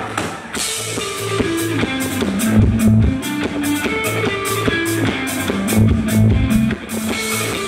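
Live rock band playing an instrumental passage without singing: electric guitars and bass guitar over a drum kit keeping a steady beat with cymbals.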